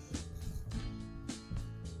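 Background music with a steady beat, led by strummed guitar.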